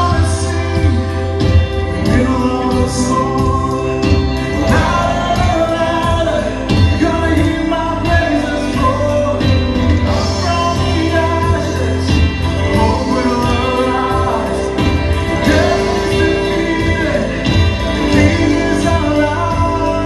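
A church worship band playing a song live: keyboards, guitars, bass and drums with singing over them.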